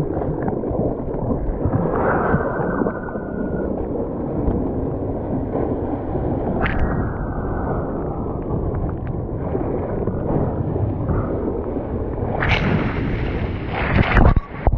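Rushing water and wind on a GoPro mounted on a bodyboard riding a breaking shore-break wave. A louder crash comes near the end as whitewash sprays over the camera.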